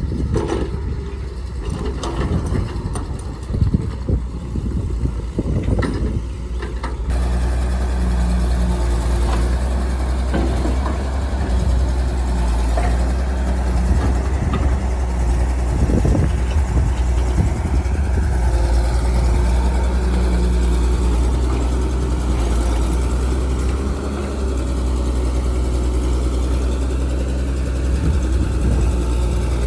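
Heavy earthmoving machinery at work: a large diesel engine running steadily with a low drone, with a few knocks. The sound changes abruptly about seven seconds in.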